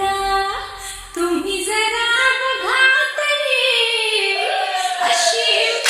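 A female voice singing a slow, drawn-out melodic line with sliding, held notes, over a thin low bass that drops away about halfway, leaving the voice almost alone: the breakdown of a Marathi DJ dance remix.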